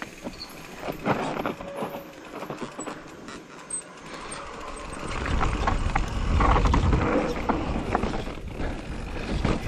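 Mountain bike riding down a dirt forest trail: tyres rolling over dirt and roots, with sharp clicks and rattles from the bike. From about halfway a louder, deep rumble comes in for a few seconds while the rattling goes on.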